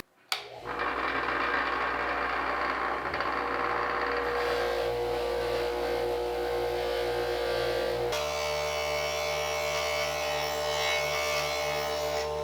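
A small electric motor running steadily, as of a handheld power tool. Its tone changes abruptly about eight seconds in.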